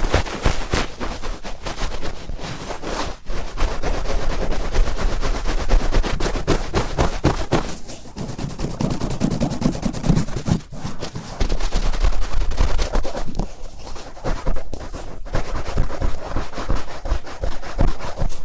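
Cotton swab rubbed and twisted firmly inside an ear: a dense, continuous crackling scratch made of many sharp clicks, turning duller and more muffled for a couple of seconds midway.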